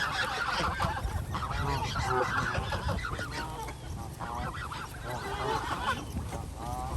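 A flock of geese honking, many short calls overlapping one another in quick succession, over a low steady rumble.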